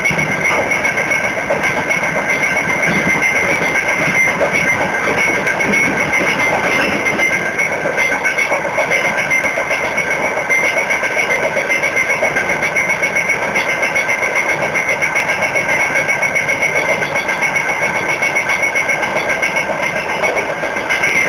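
Freight train running, its wheels clattering on the rails, with a steady high whine over the rumble.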